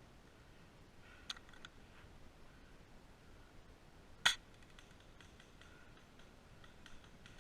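Airsoft guns firing single shots: a faint snap just over a second in, and a much louder, sharp snap about four seconds in, with a few light ticks around them.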